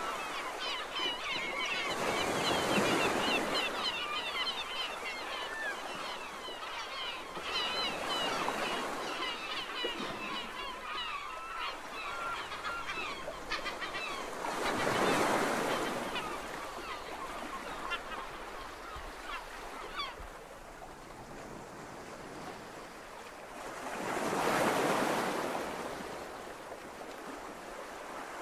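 Ocean surf washing ashore in slow swells every several seconds, with a busy chatter of bird calls over the first half that fades away.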